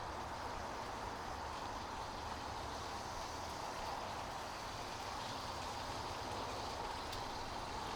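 Chicken frying in a pan on the stove, a steady sizzle.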